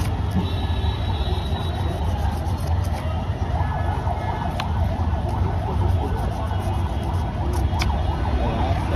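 Roadside traffic noise: a steady low engine rumble with a rapidly warbling, siren-like tone over it. Two sharp clicks come in the second half.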